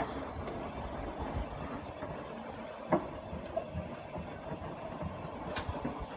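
Vintage Xpelair Whispair ceiling fan running with a steady whirring hum. There is one sharp knock about three seconds in and a faint click a little before the end.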